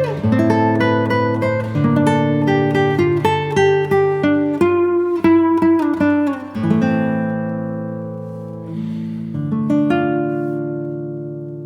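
Background music: acoustic guitar played with plucked notes in quick succession, then a chord left ringing and slowly fading over the second half.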